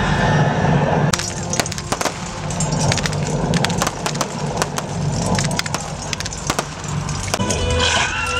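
Staged battle: sharp metallic clashes of swords and weapons striking, coming at irregular intervals, over a steady low rumble.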